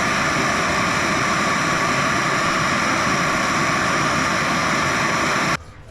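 Loud, steady machine noise, like a motor running, that cuts off abruptly near the end.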